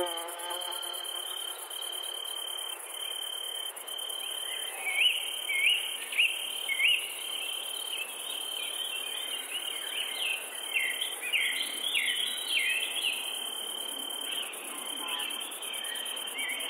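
Insects trilling steadily in a high, even tone, with short rising chirps repeating from about four seconds in and again later on.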